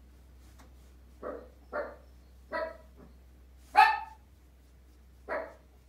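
A small dog barking loudly: five short, sharp barks spread over a few seconds, the fourth the loudest.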